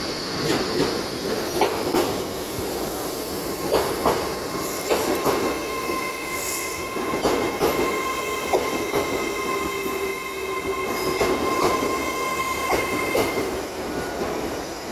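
Lumo Class 803 electric train passing close along the platform: its wheels click repeatedly over the rail joints, and from about six seconds in a high, steady squeal from the wheels sounds for several seconds before fading near the end.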